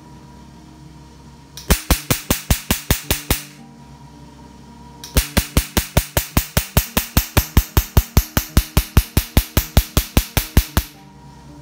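Picosecond laser's 755 nm handpiece firing repeated pulses onto a black test card, each shot a sharp snap at about six a second. It fires in two runs: a short one of about ten shots, then a longer one of about thirty.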